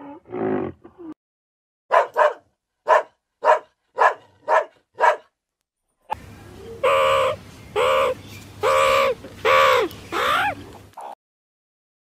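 A dog barking: eight quick, sharp barks, followed by a run of five longer, drawn-out calls over a low hum. The tail of a low animal roar ends about a second in.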